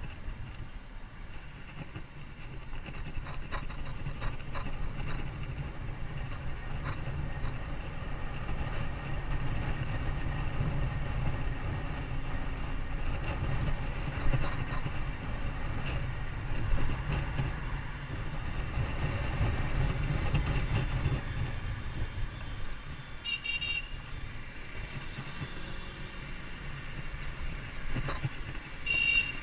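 Low rumble of a moving vehicle, growing louder in the middle and easing off after about two-thirds of the way through, with two brief high beeps near the end.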